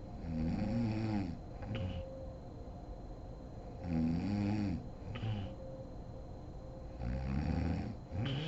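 A sleeping woman snoring: three snores about three and a half seconds apart, each a pitched rattle that rises and falls, followed by a short breathy sound.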